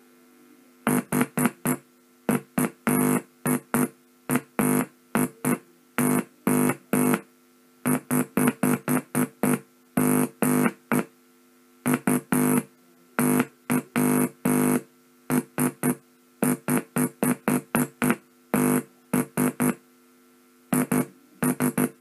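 Buzzy electronic Morse tone keyed on and off with a Bencher paddle key, sending Morse code as short and long beeps. The beeps come in groups with short gaps between them and a few longer pauses.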